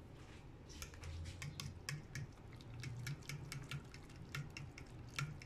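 Spoon clicking and scraping against a bowl while stirring coconut powder into hot water to make coconut milk, in quick irregular clicks several times a second.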